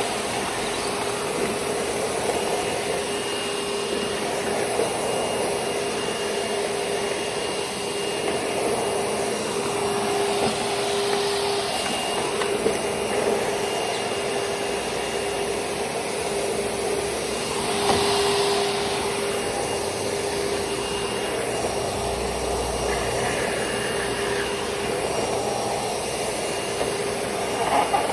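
Panasonic-built Kenmore Progressive upright vacuum's 12-amp motor running steadily under a rush of suction noise, with a constant mid-pitched whine. The airflow swells briefly twice, about a third and about two thirds of the way in.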